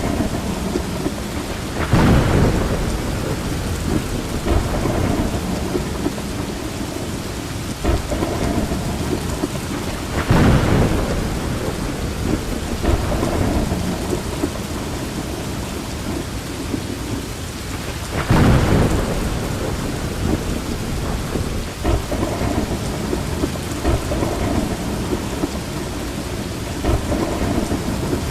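Steady rain falling, with thunder rumbling over it; three louder thunder rolls come about eight seconds apart, with smaller cracks between.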